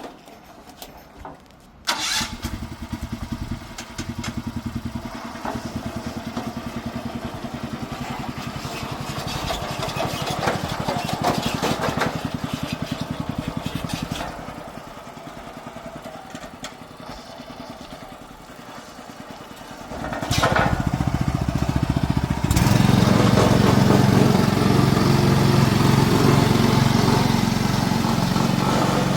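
Small engine of an agricultural power carrier starting up about two seconds in and running steadily. It drops quieter for a stretch in the middle, then runs harder and louder over the last several seconds.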